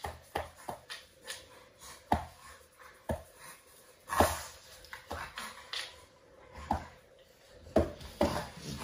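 Chocolate Labrador retriever play-wrestling on its back on a hard floor: irregular short scuffles and dog noises, about two a second, the loudest about four seconds in.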